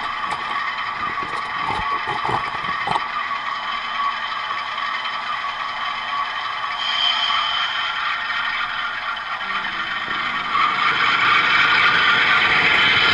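HO-scale model train running along its track, heard from on board: a steady motor whir with wheels scraping and clattering over the rails, a few sharp clicks in the first three seconds. It gets louder near the end.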